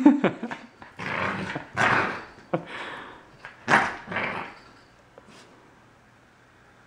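Corgi puppy growling and huffing in several short bursts while it rubs and rolls against the couch fabric, fussing at a new collar it dislikes.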